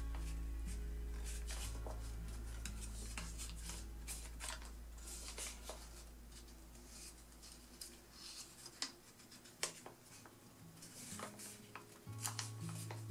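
A sheet of paper being folded and pressed into creases by hand, giving irregular rustles and short sharp crackles. Quiet background music with held notes plays underneath.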